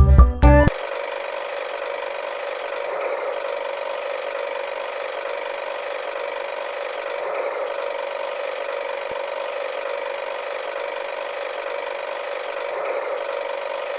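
Children's music cuts off about half a second in, then a steady mechanical whirring noise runs on without change.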